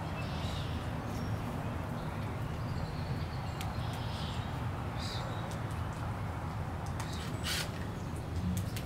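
Backyard ambience: a steady low rumble with a few birds calling. Several short knocks and scrapes as a wooden 4x4 post is handled, the loudest about seven and a half seconds in.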